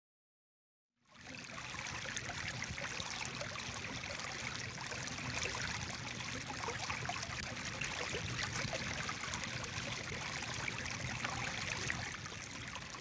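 Running water like a trickling stream, a steady babble of fine splashes that starts suddenly about a second in after silence.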